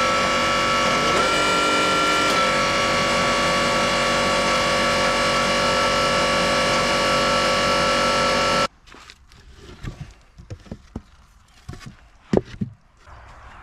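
Electric-motor-driven hydraulic pump of a homemade log splitter running with a steady whine, its pitch dipping briefly about a second in. The sound cuts off abruptly after about nine seconds, leaving only a few faint knocks.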